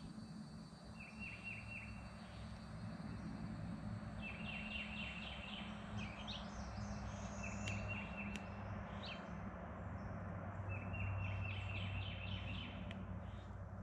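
Outdoor animal calls: short runs of quick, high, repeated notes that come back every couple of seconds, over a steady low hum.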